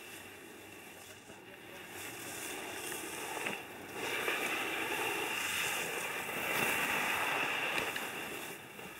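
Skis hissing and scraping over packed snow as skiers carve down the slope. The hiss grows louder about two seconds in and is strongest in the middle and late part.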